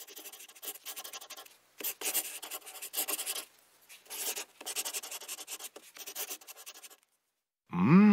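Pencil-scratching sound effect: scribbling strokes in three stretches as measurement marks are drawn onto the picture. Near the end comes a short, louder pitched sound that rises and falls in pitch.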